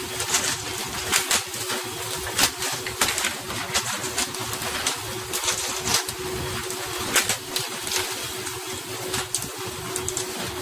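Steady rush of sea spray and water along a fishing boat's hull with a constant low hum, broken by frequent sharp slaps as hooked tuna are swung aboard and hit the deck.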